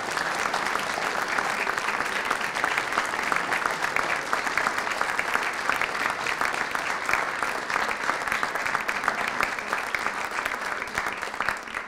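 Audience applauding, a dense, steady clapping that begins to fade near the end.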